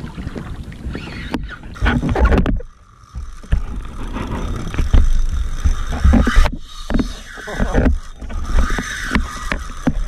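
Wind buffeting the microphone and water slapping a small boat's hull at sea, with scattered knocks of gear being handled. It is loud and uneven, dropping away briefly about three seconds in.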